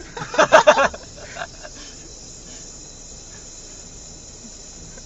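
A brief loud vocal outburst, a person's voice in a few quick pulses, about half a second in, then a steady low hiss for the rest.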